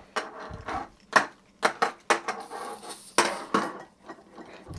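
A series of sharp metallic clicks and clinks from a shock pump and dropper post being handled, with a brief hiss of air escaping from the shock pump's hose.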